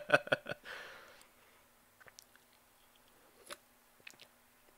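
A man's chuckling laughter ends about half a second in, followed by a breathy exhale. Then come faint clicks and mouth sounds as he sips from a drink can.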